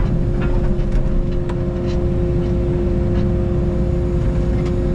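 Takeuchi TB290 mini excavator's diesel engine running steadily under the operator, with a steady whine held over the rumble and a few faint clicks scattered through.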